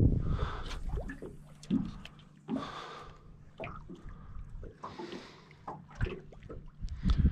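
Small waves lapping and slapping against the hull of a small aluminium dinghy, in irregular short splashes and knocks. There is a low rumble of wind on the microphone in the first second and again at the end.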